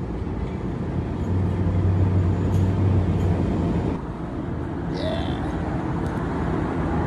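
Steady low motor rumble of running equipment, with a deeper hum swelling about a second in and easing off two seconds later.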